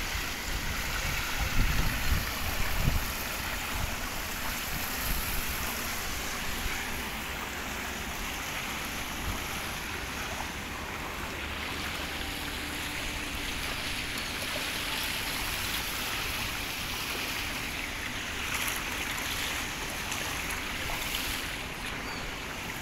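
Floodwater running, a steady rushing of water. Low wind buffets hit the microphone a few times in the first seconds.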